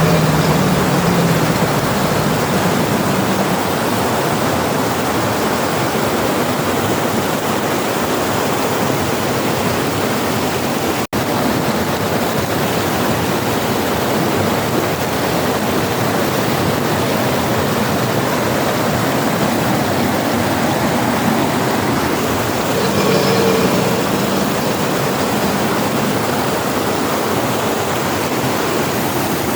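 Steady rush of flowing river water. About two-thirds of the way through, a brief faint pitched sound rises over it.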